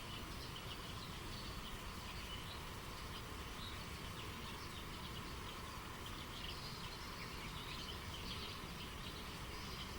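Running river water, a steady rush, with many small birds chirping over it in short, quick calls.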